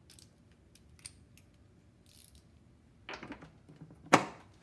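Metal handling sounds of a torque wrench being changed over on a torque tester: a few faint small clicks, a short clatter about three seconds in, and one sharp metallic click just after four seconds as the next wrench is fitted to the tester's drive.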